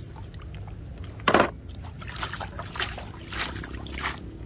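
Water splashing: a toy bus drops into a plastic tub of water with one loud splash a little over a second in, followed by four smaller splashes and sloshes as a hand moves in the water.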